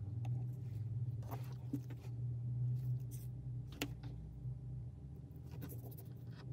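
Soldering a charging-cable wire splice by hand: a few small clicks and taps as the soldering iron and wires are handled, over a low steady hum that fades out about two-thirds of the way through.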